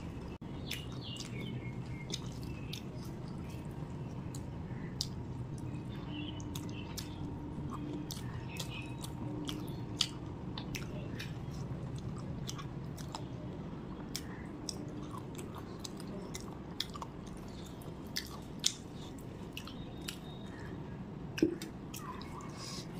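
Close-up eating sounds of a person chewing rice and chicken curry eaten by hand: many short wet mouth clicks and smacks, scattered irregularly over a faint steady low hum.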